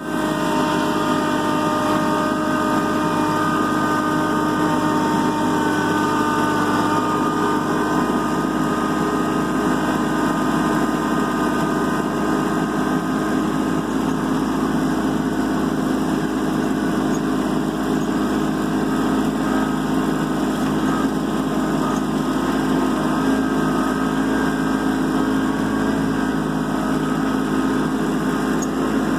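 Kubota B2650 compact tractor's three-cylinder diesel engine running at a steady speed as the tractor is driven.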